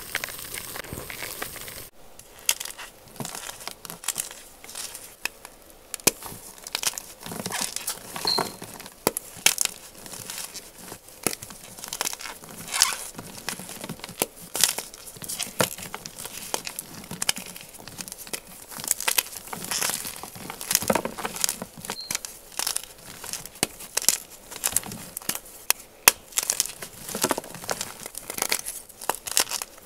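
Blocks of crunchy gym chalk crushed and crumbled between the fingers: a dense, irregular run of crisp crunches and crackles as the blocks break and the crumbs grind together.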